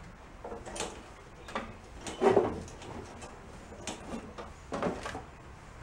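A few separate knocks and clunks, the loudest about two seconds in, as a person climbs onto a garden tractor's seat and grips the steering wheel; the engine is not yet running.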